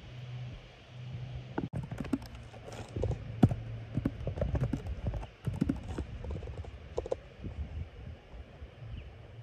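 Irregular clicks, knocks and rustles from a phone being handled and shifted while held close, over a low wind rumble on the microphone.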